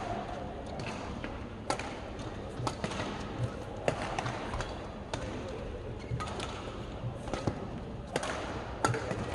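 Badminton rally: a shuttlecock struck back and forth with rackets, sharp hits roughly a second apart, mixed with players' quick footsteps on the court.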